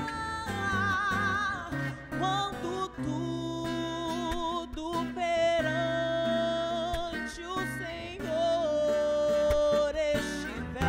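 A woman singing a Portuguese worship song with vibrato on long held notes, accompanied by a strummed acoustic guitar.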